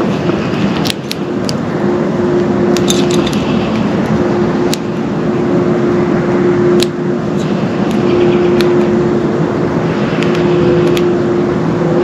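Steady loud rushing noise with a low hum under it. Over it come a few short, high bird chirps, once about three seconds in and again near the end, and several sharp clicks.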